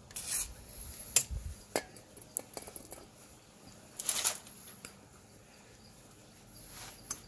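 Short hisses from a WD-40 aerosol can spraying onto the metal of a lawnmower ignition coil: one brief burst just after the start and a longer one about four seconds in. Small clicks and light metallic taps fall between them.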